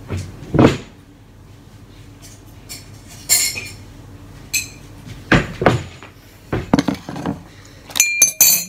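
A metal spoon and a ceramic mug being handled: scattered knocks and clinks, with a few quick ringing clinks of the spoon against the mug near the end.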